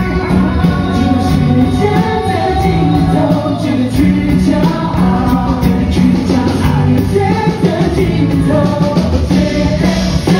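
A live pop-rock band playing an instrumental passage with electric and acoustic guitars over bass and a steady beat; the female lead vocal comes back in near the end.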